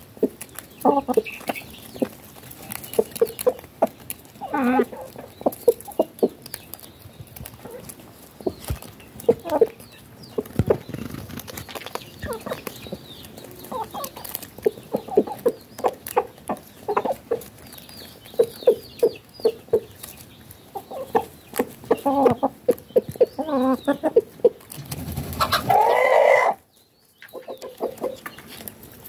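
Domestic hens and a rooster clucking in short, soft calls while pecking at bread crumbs on hard dirt, the pecks heard as quick taps among the calls. Near the end comes a louder, longer burst of calling, then the sound drops out for about a second.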